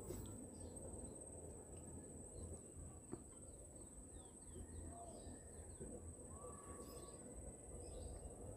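Faint outdoor ambience: scattered short bird chirps through the middle over a steady high-pitched whine and low rumble, with one soft tap about three seconds in.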